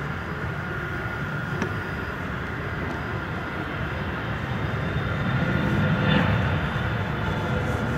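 Jet engines of a taxiing Boeing 747SP: a steady low rumble with a faint high whine, swelling briefly about six seconds in.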